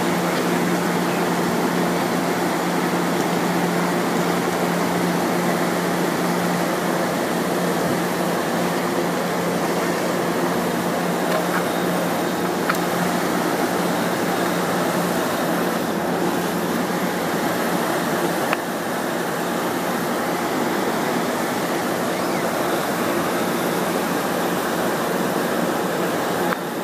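Steady hum and fan rush of a Pacific Surfliner bilevel passenger car's air-conditioning equipment behind its louvred side grilles, with a low steady tone under it.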